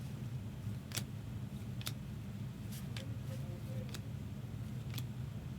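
Trading cards being handled and flipped, giving a few sharp clicks about a second apart, over a low steady hum.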